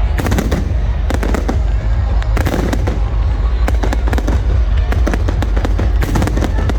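Fireworks display: a dense, continuous run of sharp bangs and crackling bursts, many per second, over a heavy low rumble.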